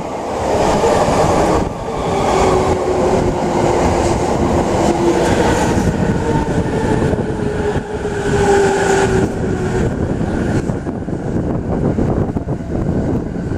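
JR East E353 series electric express train running slowly past along the platform as it pulls in and decelerates. A steady rolling rumble runs under a whine that falls slowly in pitch as the train slows.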